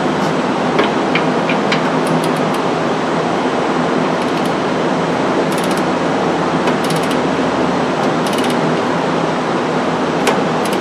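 A ratcheting torque wrench tightening a lower control arm bolt, heard as several short runs of quick metallic clicks over a loud, steady background noise.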